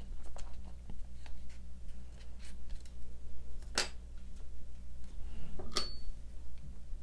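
A paper quilling strip being handled and wrapped around a plastic glue bottle: light rustles and small taps and clicks, with two sharper clicks, one about four seconds in and one near six seconds.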